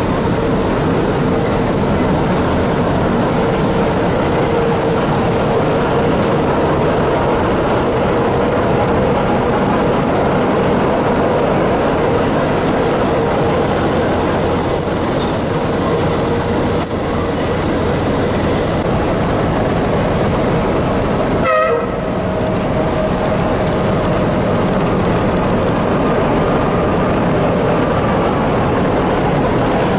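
CFR class 80 diesel-hydraulic shunting locomotive running steadily as it moves slowly along the track, with a short horn blast about two-thirds of the way through.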